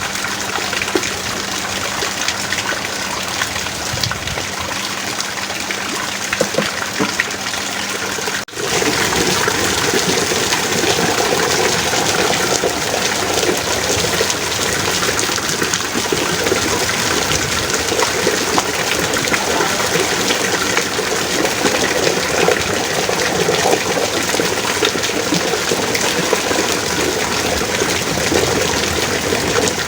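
Heavy rain falling steadily. About eight seconds in, the sound briefly dips and then comes back a little louder.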